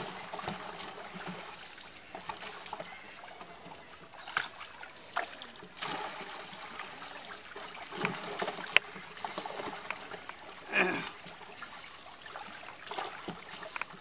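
Shallow pond water sloshing and splashing as men work a fishing net and pick fish from it, with scattered sharp splashes. A short voice call about eleven seconds in.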